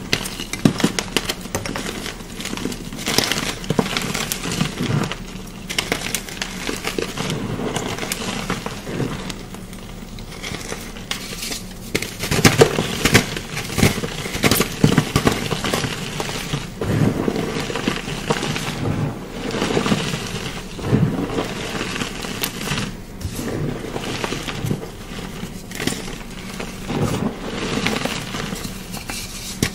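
Chalk being crushed and crumbled up close: a steady run of crunching, crackling and sharp snaps, with a few heavier crunches in the middle.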